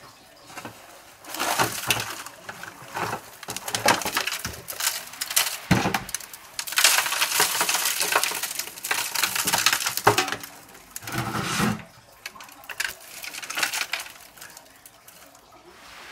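Rustling and crinkling of potted cuttings and their containers being handled, with scattered clinks and knocks, one heavier knock about six seconds in.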